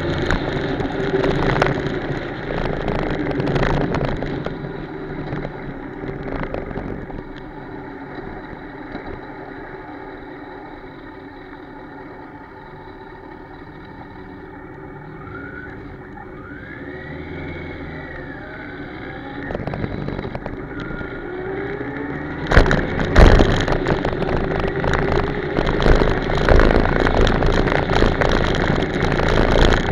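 Motorcycle engine running under wind noise on the bike-mounted microphone while riding; it drops to a quieter idle while stopped in the middle, then rises in pitch as the bike pulls away, and the wind noise grows loud and gusty near the end.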